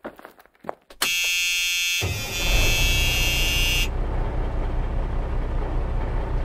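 A loud electronic buzzing tone starts suddenly about a second in and cuts off near four seconds. From about two seconds it is joined by a steady low engine rumble that carries on: the start-up and running sound given to a tracked LEGO rover.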